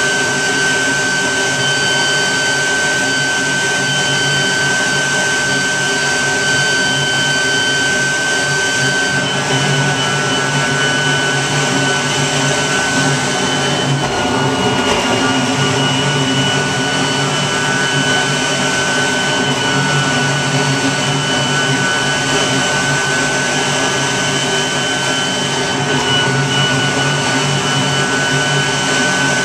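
Workforce electric leaf blower running steadily with a high whine, blowing loose cellulose insulation through a wet-dry vac hose into a wall cavity. The whine shifts slightly in pitch a few times.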